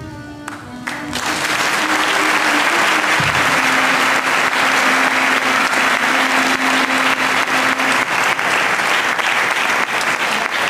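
Audience clapping, setting in about a second in and going on steadily, with faint closing notes of the accompanying music under it and one note held for several seconds.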